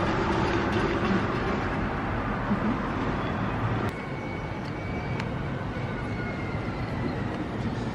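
Steady outdoor traffic noise, a low rumble under an even hiss, dropping a little in level about four seconds in, where a faint high whine comes in.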